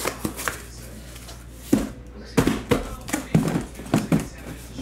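Cardboard shipping case being opened by hand: a few light clicks, then from about a second and a half in a quick run of sharp knocks and scrapes as the flaps are pulled open and the case is handled.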